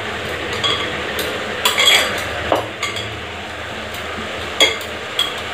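Hands handling kneaded puri dough in a glass bowl, with several light clinks and knocks of glass bangles and the bowl, over a steady frying hiss from a covered kadhai of peas on the gas stove.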